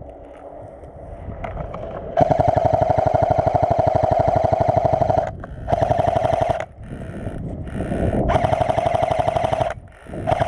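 Airsoft rifle firing full-auto in rapid, even bursts, the first lasting about three seconds and starting about two seconds in, followed by several shorter bursts.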